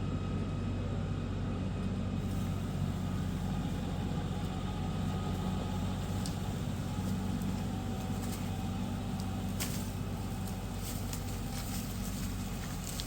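Farm tractor engine running steadily while it winches a log up a steep hill, with a few short clicks or snaps in the second half.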